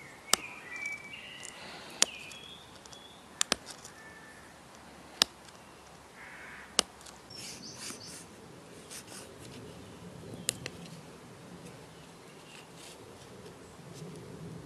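Quartz being pressure-flaked with a small metal-tipped tool: sharp, separate clicks and snaps, about seven of them a second or two apart, as tiny flakes pop off the stone. Birds chirp faintly in the background.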